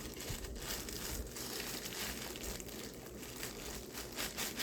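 Packaging crinkling and rustling as it is handled and unwrapped from the camcorder, in many short irregular crackles.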